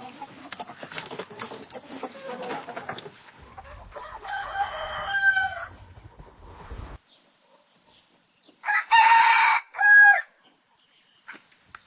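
Two rooster crows from two different recordings. The first, about four seconds in, is fainter over a busy farmyard background. The second, about nine seconds in, is loud and clear: a long note followed by a shorter one.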